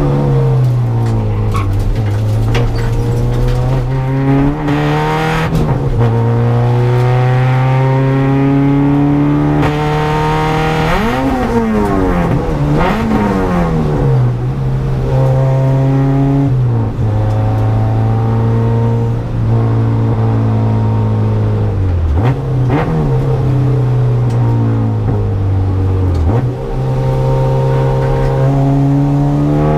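Honda EG Civic's engine heard from inside the cabin, driven hard on track. The engine climbs slowly in pitch under acceleration and drops sharply at several gear changes. About eleven to thirteen seconds in, it swoops up and down twice in quick revs, as on downshifts under braking.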